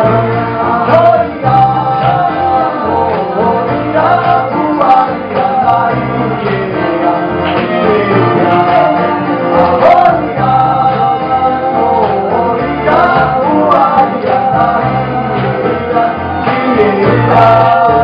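Live acoustic song: male voices singing together over a steadily strummed acoustic guitar.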